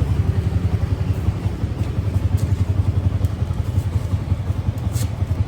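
Motorcycle engine running at idle with a fast, even low pulse, and a few sharp metallic clicks, the loudest about five seconds in.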